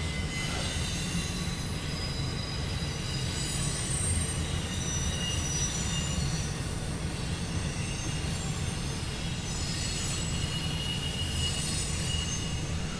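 CSX intermodal freight train's cars rolling past: a steady low rumble with thin, high-pitched squeals that come and go, heard from inside a vehicle.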